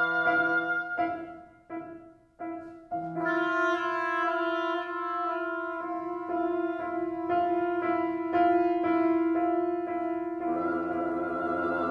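Oboe, bassoon and piano playing contemporary chamber music. About two seconds in, short detached chords are separated by brief silences. Then the oboe and bassoon play soft repeated notes over evenly repeated piano notes, about two a second.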